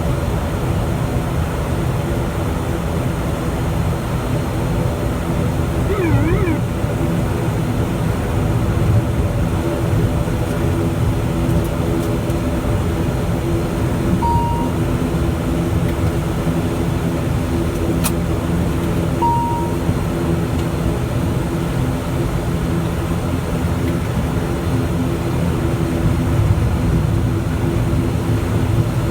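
ATR 72's twin turboprop engines and propellers running with a steady, even drone. Two short beeps sound about five seconds apart midway through.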